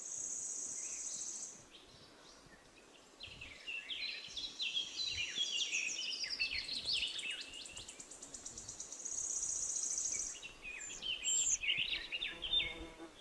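Small songbirds singing and calling: a high, fast trill heard twice, with many quick falling chirps between.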